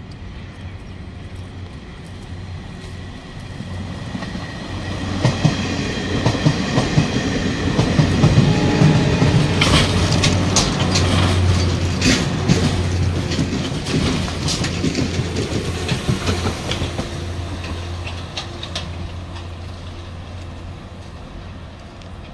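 Self-propelled rail grinding train approaching and passing close by: a steady low hum with rapid wheel clicks over the rail joints. It grows loudest about ten seconds in, then fades as it moves away.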